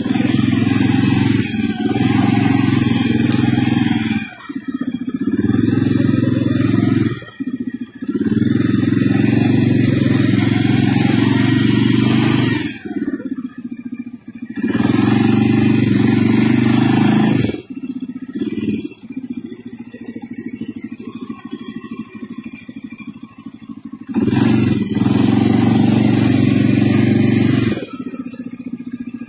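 CFMoto CForce 600 ATV's single-cylinder engine pulling hard under throttle while riding. It comes in five long pulls of two to four seconds each, dropping back to a quieter run off the throttle between them, with a longer quiet spell in the second half before one last pull near the end.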